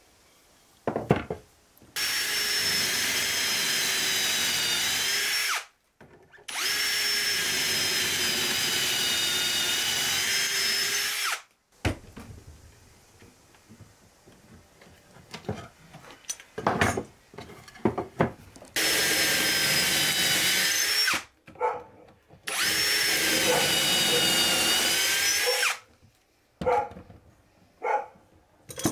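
Electric drill boring dowel holes into wooden table rails through a doweling jig. It runs four times for a few seconds each, its pitch dipping slightly during each run and cutting off sharply. Between the runs come clicks and knocks as the jig and wood are handled.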